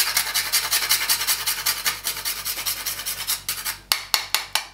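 Whole nutmeg grated on a small hand-held metal grater: a quick, even run of rasping strokes, then a few slower separate strokes before it stops near the end.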